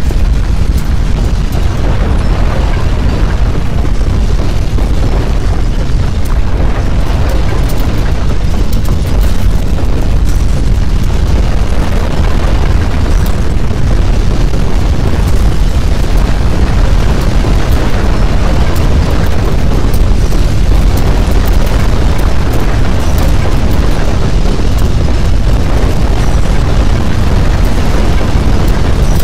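Earthquake rumble: a loud, continuous deep rumbling noise with no breaks, standing for the ground shaking during the magnitude 8.4 quake.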